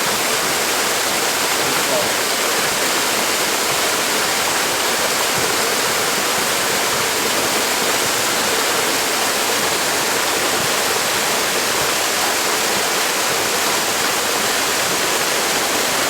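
Close waterfall, a steady, even rush of falling water.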